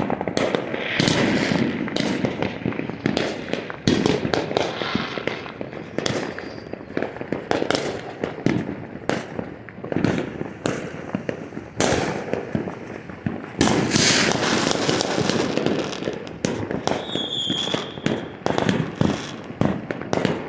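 Many fireworks going off at once: a dense, irregular barrage of sharp bangs and crackling pops, with a short high whistle near the end.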